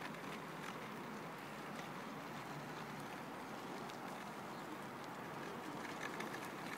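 Faint, steady outdoor background noise with a few light ticks.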